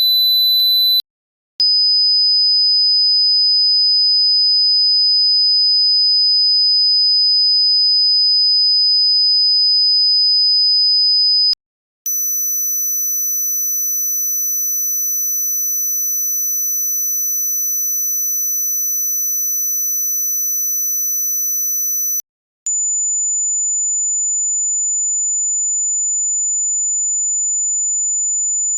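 Electronically generated pure sine tones for a tinnitus and hearing test, played in steps of about ten seconds with brief silent gaps, each step higher in pitch. A high tone paired with a very high one ends about a second in, followed by a single steady high tone. Then comes a higher tone with a very high one alongside, slightly quieter, and near the end a single tone higher still.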